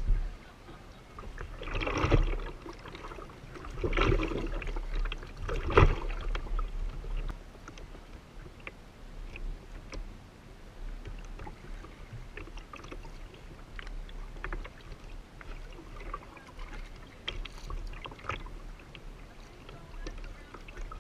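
Water splashing and lapping against a kayak's hull as it is paddled over choppy lake water, with three louder splashes about two seconds apart in the first six seconds and a low wind rumble on the microphone.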